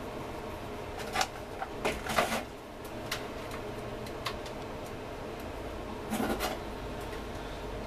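Handling noise from multimeter test probes and the meter against a welding inverter's metal frame: scattered light clicks and knocks, loudest about two seconds in, then a short scrape about six seconds in as the meter is set on top of the frame, over steady background noise.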